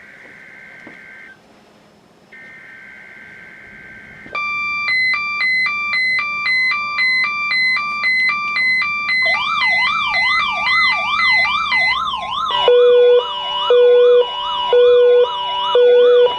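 Several Emerson NOAA weather radios sounding their built-in alert alarms, set off by the weekly test's warning signal. About four seconds in, a loud high-low alternating beep starts. A fast rising-and-falling warble joins it, then a lower beeping that pulses about once a second, so the alarms overlap into a layered electronic din.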